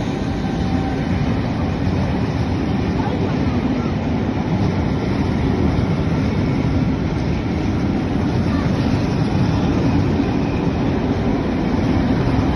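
Steady rumble of a train running, even and unbroken throughout.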